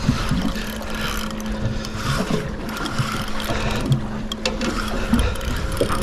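Steady low hum of a boat motor running, with wind and water noise and a few light clicks.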